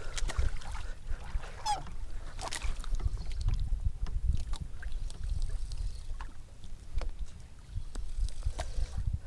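Uneven low rumble of wind and water around a small fishing boat, with scattered clicks and a short wavering squeak about one and a half seconds in.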